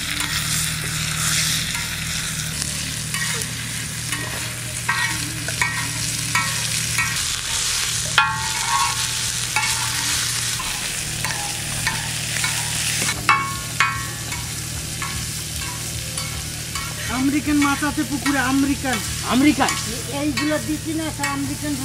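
Minced chicken sizzling in mustard oil on a wide tawa, with a metal spatula scraping and tapping the pan as the meat is stirred and turned.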